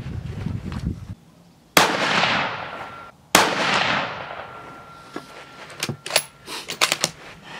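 Two rifle shots from a CZ 600 Trail in .223 Remington firing Federal 55-grain ammunition, about a second and a half apart, each with a long echoing tail. A few short sharp clicks follow near the end.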